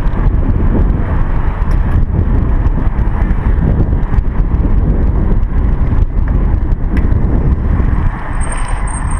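Steady low rumble of wind buffeting and tyre noise picked up by a chest-mounted GoPro on a moving bicycle, with a few light clicks. Near the end a thin, high whistle sounds for about a second.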